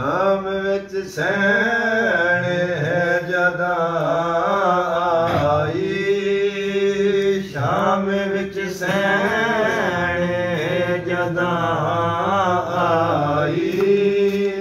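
A man chanting a Punjabi noha, a lament for Imam Hussain, in long melismatic phrases with wavering held notes and short breaths between them.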